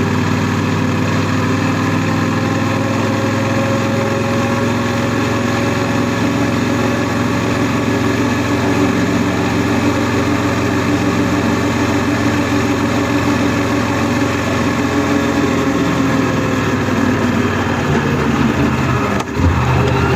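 Honda NC700S motorcycle's 670 cc parallel-twin engine running steadily under way, its note rising slightly and easing back off. About nineteen seconds in the sound drops sharply for a moment, and the low engine note changes after it.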